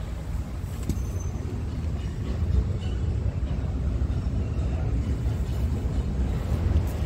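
Scania R730's V8 diesel engine idling, a steady low rumble.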